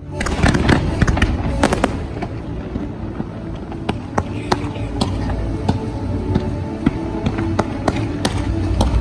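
Fireworks launching and bursting in quick succession, many sharp bangs over a steady low rumble, thickest in the first two seconds, with show music playing underneath.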